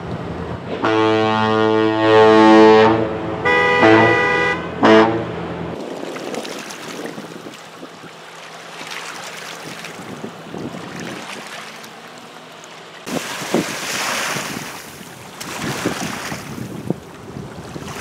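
Great Lakes freighter's horn sounding one long blast of about two seconds, then a shorter blast and a brief third, over a low steady hum. After that comes wind on the microphone and water noise.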